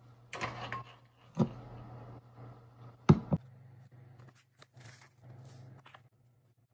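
Kitchen handling sounds over a low steady hum: a few sharp knocks of dishes or utensils, the loudest a quick double knock about halfway through. Then a dry rustle of a seasoning packet being handled and powder shaken from it onto a bowl of rice and egg.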